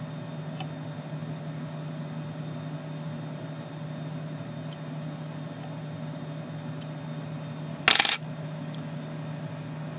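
Steady low hum with a few faint ticks, and a single sharp metallic clink about eight seconds in.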